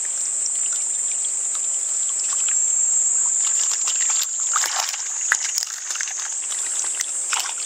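Water splashing and sloshing as a hand stirs and lifts live ayu in a water-filled mesh landing net, the splashes busiest around the middle and again near the end, over a steady high-pitched hiss.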